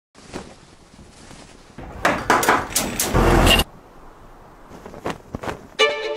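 A loud run of knocks and bangs with a rush of noise, cutting off suddenly about three and a half seconds in, then two sharp clicks; violin music starts near the end.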